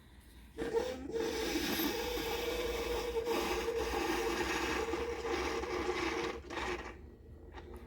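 Cuisinart 2-in-1 coffee maker running on a test brew, its pump buzzing steadily for about six seconds before cutting off.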